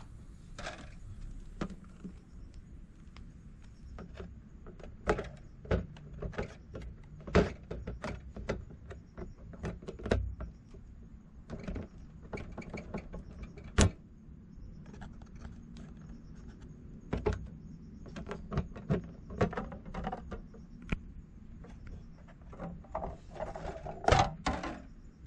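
Irregular light clicks and knocks of hands handling a model truck trailer's clear plastic fish tank, over a faint steady low hum. One sharper click comes about halfway through, and a quick cluster near the end.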